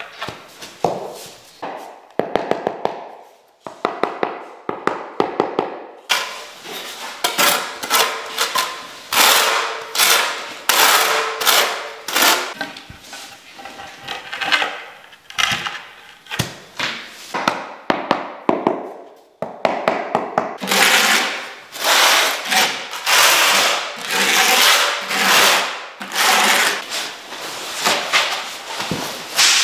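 Floor-tiling work: a run of short scraping strokes and knocks as ceramic floor tiles are bedded into tile adhesive and tapped down with a rubber mallet. The strokes come in quick bunches with short pauses between them.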